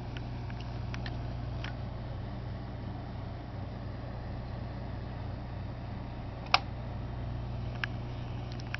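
A steady low hum with a few faint handling clicks, then one sharp click about six and a half seconds in as the hood of the die-cast model truck is pushed shut.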